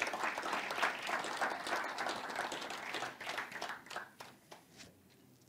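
Audience applauding, the clapping thinning out and dying away about four seconds in.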